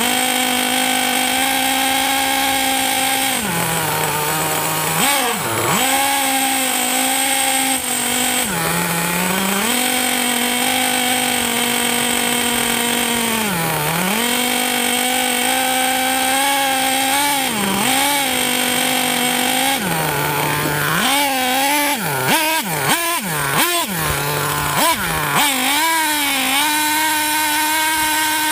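Nitro RC truck's small two-stroke glow engine, heard from right on the truck, running hard with its pitch dropping and climbing back each time the throttle is let off and reopened. In the last third it blips up and down quickly several times before settling back to a steady high run.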